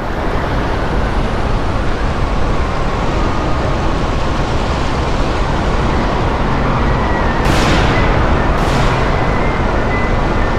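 A loud, steady, deep rumble of stormy wind ambience, fading up at the start. Two quick whooshes cut through it about seven and a half and eight and a half seconds in.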